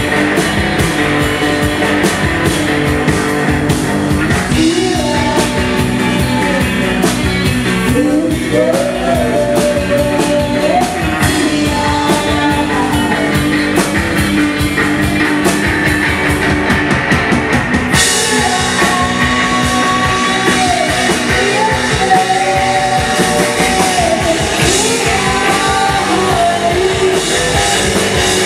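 A live rock band playing loudly, with drum kit and electric guitar, the guitar line gliding up and down in pitch. The sound turns suddenly brighter and hissier about two-thirds of the way through.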